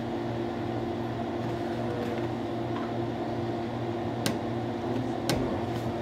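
Steady mechanical hum with a low drone and faint hiss, like a room fan or ventilation unit running, with two brief light clicks a little after four and five seconds in.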